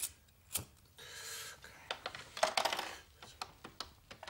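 A cigarette lighter being flicked: a string of small sharp clicks and scrapes, with a denser, louder cluster about halfway through, and the flame lit by the end.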